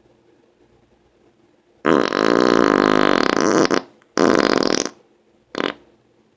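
A person breaking wind three times: a long, loud, buzzy fart of about two seconds, a shorter one, then a brief one.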